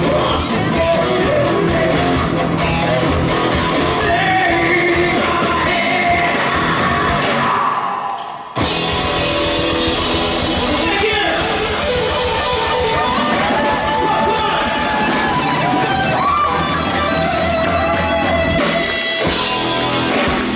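Live rock band playing: electric guitars, bass guitar and drums with vocals. The music fades about eight seconds in and comes straight back in, with the singing standing out in the second part.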